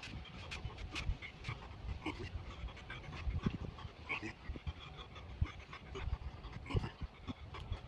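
A man panting hard, out of breath from squats and pull-ups in a 20 lb weighted vest. Scattered short clicks and knocks run through it.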